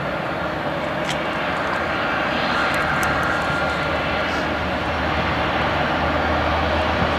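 Aircraft engine noise, a steady dense rush that grows a little louder after the first couple of seconds, with a deeper low hum coming up in the second half.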